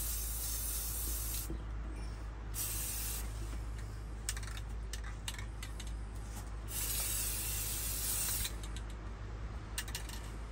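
Aerosol spray can of primer spraying in three long hissing bursts, with short clicks in between.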